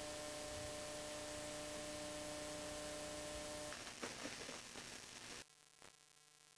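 Steady electrical hum and hiss on the recording. About four seconds in it gives way to faint, irregular low noise, and about a second later it drops to near silence.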